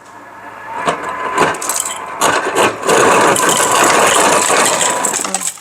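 Refrigerator door ice dispenser running on its crushed-ice setting: the crusher motor grinding and ice chips rattling down into a glass, building up and cutting off suddenly near the end.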